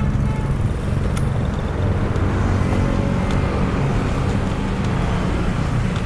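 Road traffic: motor vehicle engines running, a continuous low rumble.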